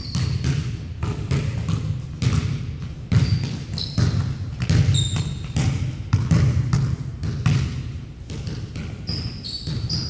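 Basketball dribbled on a hardwood gym floor, with irregular bounces, and several short high squeaks of sneakers on the floor.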